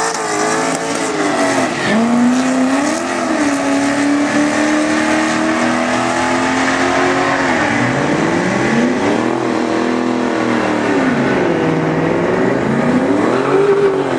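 Chevrolet Camaro Z28's LS1 V8 running hard at wide-open throttle. The pitch climbs steadily, drops sharply at each gear change and climbs again, several times.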